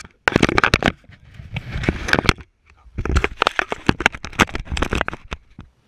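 Close handling noise on the kayak-mounted GoPro: fingers knocking, rubbing and clicking on the camera housing and its mount. It comes in three loud bursts of rapid clicks and knocks.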